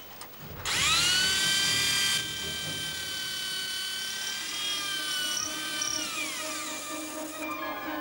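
Electric motor-driven machine starting up for a test run: a whine rising quickly in pitch, with a loud hiss for the first second and a half, then a steady high whine that winds down, falling in pitch, near the end.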